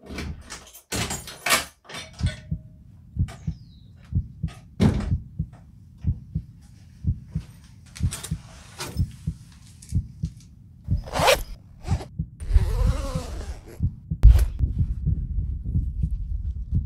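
Royal Enfield Classic 500 single-cylinder engine, bored out with a 535cc kit and fitted with an aftermarket exhaust, idling with an even low thump. A few sharp clicks and knocks sound over it, the loudest near the end.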